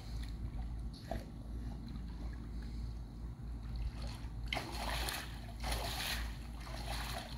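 Swimming-pool water splashed by hand in several bursts, starting about halfway through, over a steady low hum.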